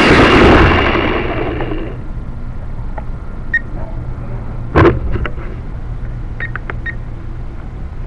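A small motor running loudly, dying away over the first two seconds. Then a single sharp knock about five seconds in, and a few short high chirps.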